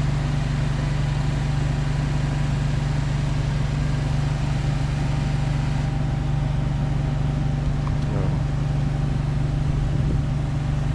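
A steady low engine drone, like a vehicle idling, over an even background hiss, with no change through the whole stretch.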